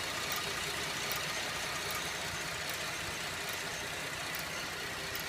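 2011 Buick LaCrosse CXL engine idling steadily, with a slow metallic tick about once a second, slower than the engine's own rhythm.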